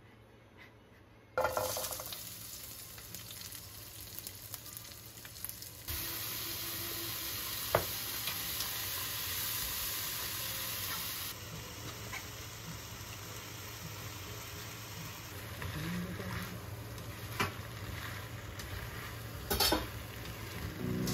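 Chopped red onion and sliced mushrooms, and later penne in tomato sauce, sizzling as they fry in a non-stick frying pan and are stirred. The sizzle starts suddenly about a second in, with a few sharp knocks of the stirring utensil against the pan.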